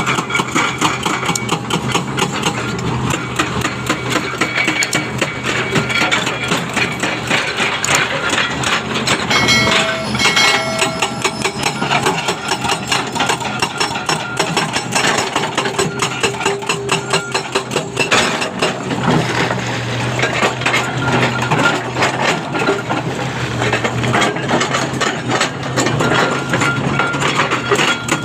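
Hydraulic breaker on a Komatsu 300 excavator hammering in a rapid, steady stream of blows, with the excavator's diesel engine running underneath.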